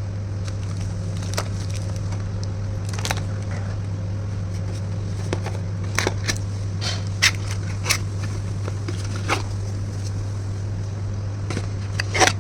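Packaging and kit items being handled: scattered crinkles and clicks, a few louder ones, over a steady low hum.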